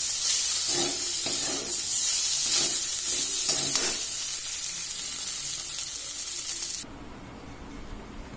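Cut okra sizzling in oil in a steel pan while a metal spatula stirs it, with a series of scraping strokes against the pan in the first few seconds. The sizzling cuts off suddenly near the end.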